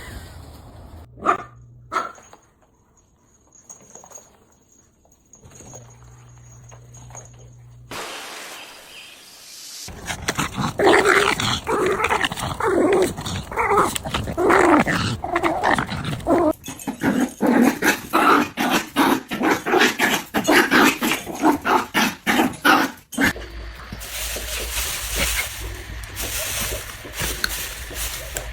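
Dog barking and whining in a long, rapid run of short calls lasting about a dozen seconds, after two sharp knocks near the start.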